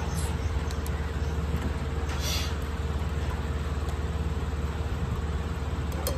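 Steady low droning hum from a machine running in the room, with a short rustle about two seconds in and a sharp click near the end.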